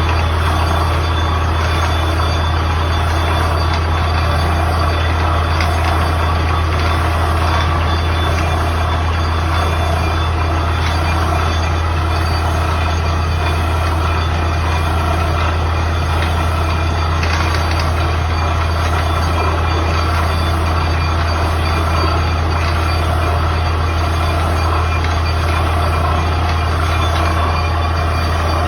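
Borewell drilling rig running steadily: a loud, unbroken low engine drone with mechanical noise over it.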